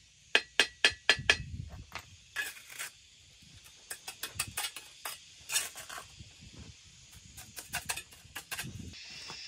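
A fast, even run of sharp hand-tool strikes, about four a second, that stops a little over a second in, followed by scattered light knocks and clicks of handling work. A steady high hiss comes in near the end.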